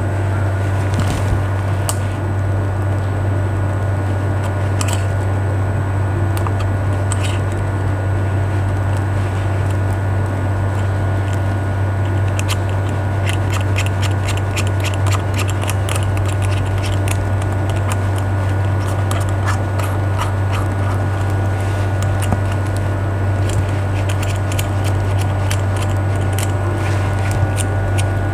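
SMD hot-air rework station switched on and running, giving a steady low hum. Runs of rapid light ticks come about halfway through and again near the end.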